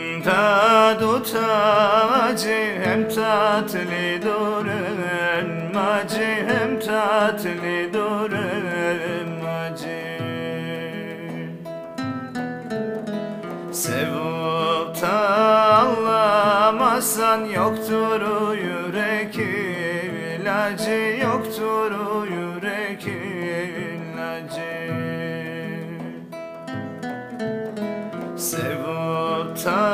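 Instrumental passage of a Black Sea folk song: acoustic guitar playing under a wavering melody line, with no sung words.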